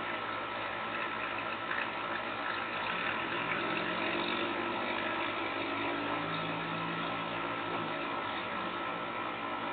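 Steady mechanical whir and hiss of an air-conditioner unit running, with a faint low hum that swells and fades around the middle.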